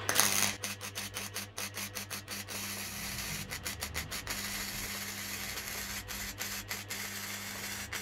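Wire-feed welding arc crackling and sizzling continuously as the printer-mounted welding torch deposits metal onto sheet steel, with a steady low hum underneath.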